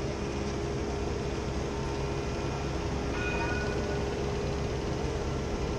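Steady city-square ambience under the constant hum of an approaching tram. A brief high tone sounds about three seconds in.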